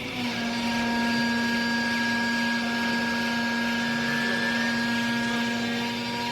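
Used-clothes baler's hydraulic power unit running, a steady motor-and-pump hum with a whine and hiss over it, starting just after the beginning.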